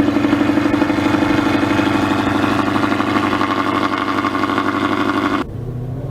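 A supercar engine running steadily at a fast idle with a rapid, even pulsing exhaust note. It cuts off abruptly about five and a half seconds in, and another car's engine follows, its pitch slowly rising.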